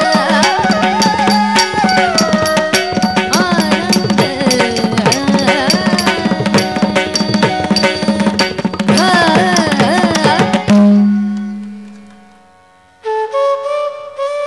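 Indian classical dance accompaniment: fast hand-drum strokes under a bending melody line, stopping on a final stroke about eleven seconds in, after which a low tone rings on and fades away over two seconds. Near the end a flute starts a slow melody of long held notes.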